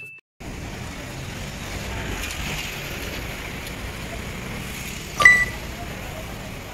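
Steady street ambience with a traffic hum. About five seconds in comes one sharp, ringing metallic clink.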